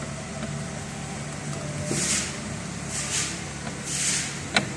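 Nissan Primera's front suspension being rocked by hand: a hissing rustle about once a second and two sharp knocks near the end, over a steady low hum. The knocking is from play in the suspension, which the mechanic puts down to a loose, worn-out support mechanism and ball joint.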